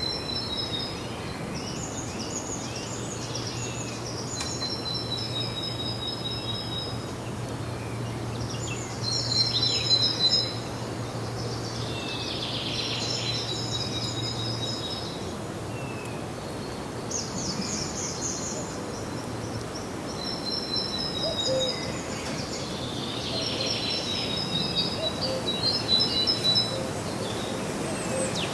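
Songbirds singing short, high, chirping phrases every few seconds, some with rapidly repeated notes, over steady outdoor background noise. A low steady hum runs underneath for about the first half.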